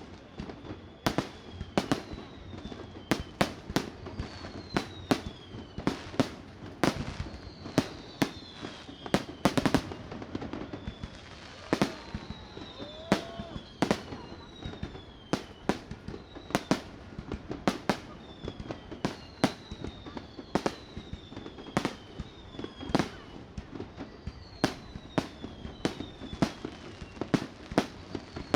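Fireworks display: a quick, irregular string of sharp bangs, one or two a second, echoing. High whistling tones that fall in pitch sound between the bangs.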